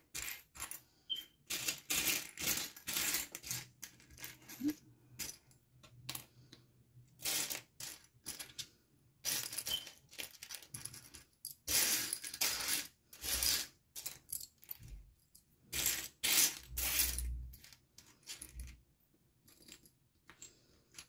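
Small plastic mini building bricks clicking and clattering in irregular bursts as hands spread and sort a loose pile of them on a mat. A few low thumps come in the second half.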